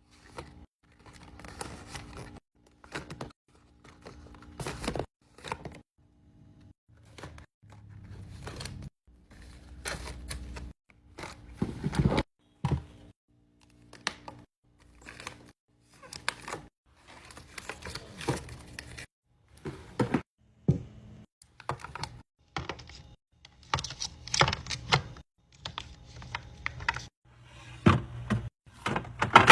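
Restocking a mini fridge: a quick, irregular run of clicks, taps and clunks as cans, bottles and packaged snacks are set in place, with some crinkling of packaging. The sounds stop short now and then and start again, with a faint low hum in the first few seconds.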